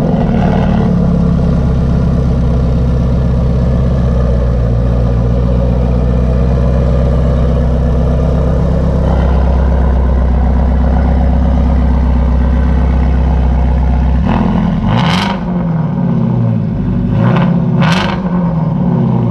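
Shelby GT350's 5.2-litre flat-plane-crank V8 running through a newly fitted Borla ATAK exhaust. It idles steadily just after starting, then about fourteen seconds in it is revved up and down several times.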